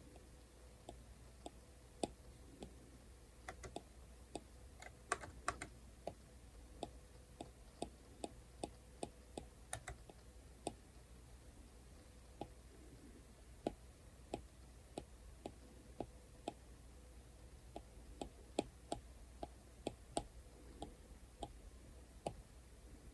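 Plastic stylus tip tapping and clicking on a tablet's glass screen while drawing: irregular sharp clicks, about one or two a second, with a few quick clusters.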